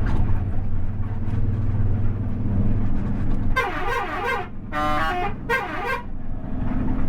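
Bus 'telolet' multi-tone musical air horn playing a short three-part tune, about halfway through, lasting some two and a half seconds, its notes sliding up and down in the first and last parts. Before it comes the bus engine's steady low drone.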